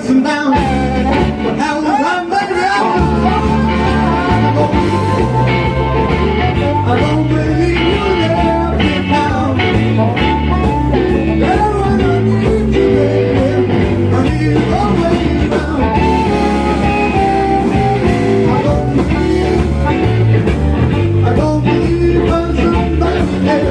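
Rock and roll band playing a blues-rock song with a singer and guitar; a heavy bass line comes in about three seconds in.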